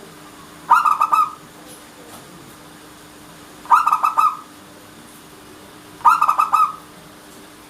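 Zebra dove (perkutut) cooing: three short phrases, each a quick run of notes lasting well under a second, a few seconds apart.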